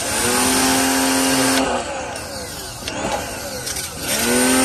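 Kapicon KP 40 electric pressure washer's motor whining up to speed and running with a steady hum under the hiss of the water jet. It stops about one and a half seconds in and starts again near the end, each time with a rising spin-up.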